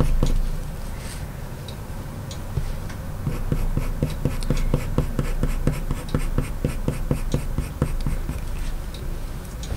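Coloured pencil scratching across paper in quick short fur strokes, several a second, pressed hard to lay down dark lines.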